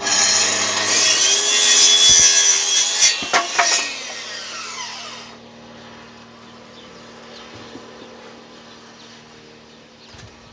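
Electric power saw running and cutting through a wooden plank with a loud whine. The motor is switched off about four seconds in and winds down, its pitch falling until it stops about five seconds in.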